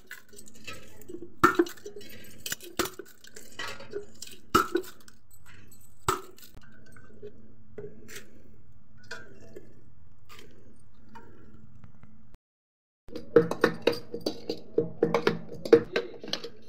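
Bangles and a small steel bowl clinking as a hand mashes and mixes pani puri filling, with scattered sharp clinks at first and a quick run of clinks near the end; a steady low hum lies underneath.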